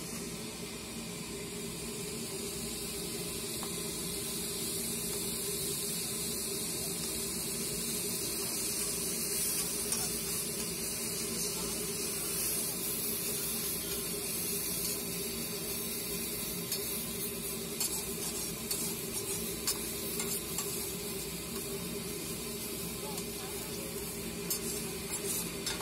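Minced pork and eggs sizzling on a large flat iron griddle, with a steady hiss that swells about halfway through. A metal spatula scrapes and taps on the plate, the clicks coming more often in the second half.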